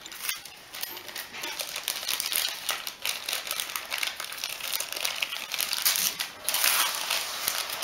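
Gift wrapping paper being torn and crinkled by hand as a small present is unwrapped, a dense run of rapid crackles, with a louder stretch of tearing near the end.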